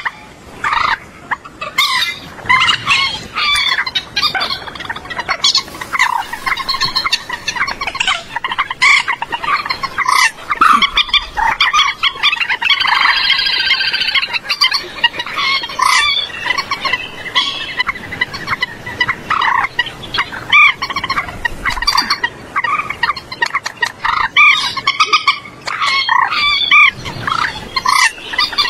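Common moorhen calls: many short, sharp calls in quick succession, with a longer drawn-out call around the middle.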